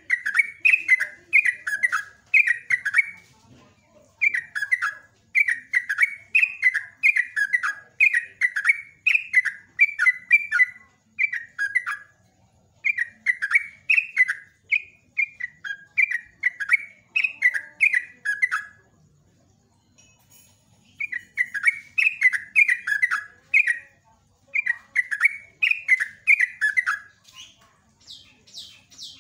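Yellow-vented bulbul singing a long, rapid song: runs of quick bubbly notes that rise and fall, in phrases of several seconds with short gaps. There is a longer break about two-thirds through, and softer, higher chirps near the end.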